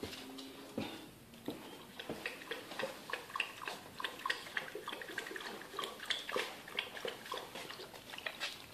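Dog lapping water from the bowl of a gravity-fed water dispenser: a long, irregular run of quick wet laps that starts about two seconds in and stops near the end.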